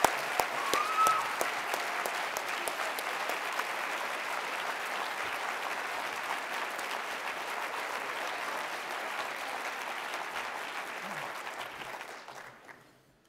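Large audience applauding, many hands clapping steadily, then dying away about twelve seconds in.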